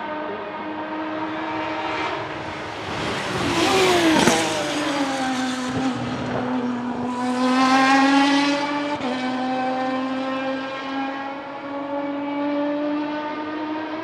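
The BMW 3.0-litre naturally aspirated straight-six of a Lucchini P207 hillclimb prototype, running at high revs. It is loudest about four seconds in, where its pitch drops sharply as the car goes by. It swells again with the pitch climbing around eight seconds, then holds a high, steady note as the car runs on.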